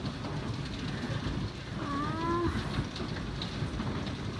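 A severe thunderstorm's heavy precipitation and wind making a steady rushing noise. About two seconds in comes one short pitched whine or moan lasting under a second, rising slightly in pitch.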